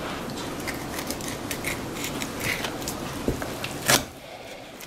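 Faint scattered clicks and scrapes of a knife cutting venison off the bone of a deer's front shoulder, with one sharper click about four seconds in.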